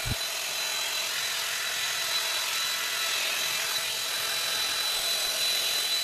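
A TechKing 5-in-1 multifunctional hot-air styler running in hair-dryer mode: a steady rush of blown air with a thin high whine from its fan motor. A soft handling bump comes right at the start.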